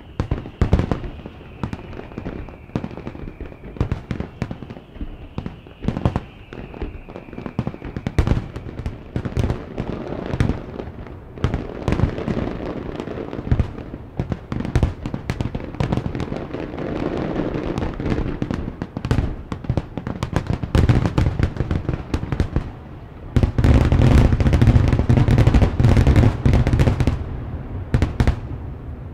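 Fireworks going off: sharp bangs and pops at irregular intervals, with a faint high tone slowly falling during the first eight seconds. Past the twenty-second mark it builds into a dense, loud barrage of rapid bangs lasting about four seconds, then thins out.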